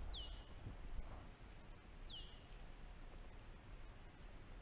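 A bird's short, falling whistle, repeated three times about two seconds apart, over a steady high drone.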